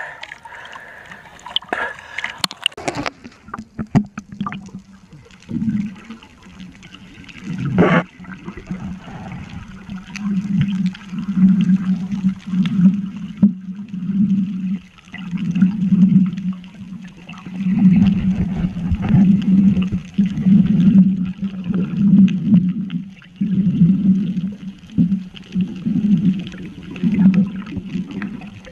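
Underwater sound through a submerged camera. A few splashes as it goes under, then low, muffled water noise pulsing about once a second while the diver works debris off the squid trap.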